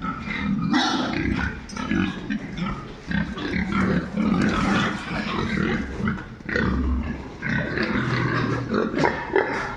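A group of pigs calling without pause: low grunts overlapping with higher-pitched squeals.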